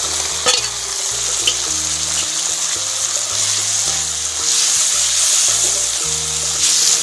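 Goat tripe and liver sizzling in hot oil in a wok while a metal spatula stirs and scrapes, with two sharp metal taps about half a second and a second and a half in. The sizzle grows louder past the middle, over background music.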